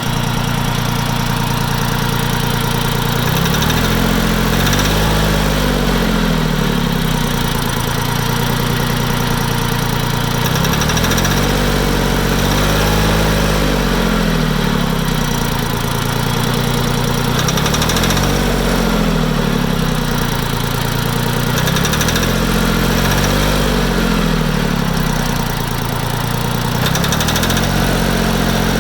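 Farm Pro 2425 tractor's diesel engine running with a knock, its pitch swelling up and back down every few seconds. The knock develops 5–10 minutes after a cold start, and its cause is not yet known.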